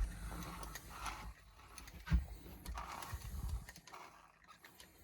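Handling noises from an RC truck being worked on by hand: scattered clicks and small knocks with a few low thumps, the loudest about two seconds in.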